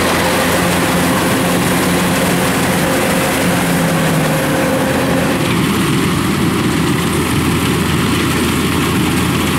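Rice combine harvester running steadily, its diesel engine and threshing machinery together. The tone of the machinery changes about halfway through.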